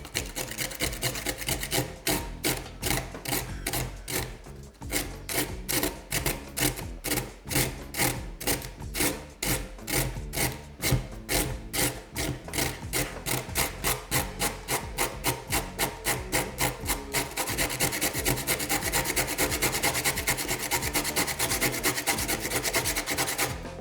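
Carrot being grated on a metal grater: repeated rasping strokes, about three a second, that speed up into near-continuous scraping about three-quarters of the way through.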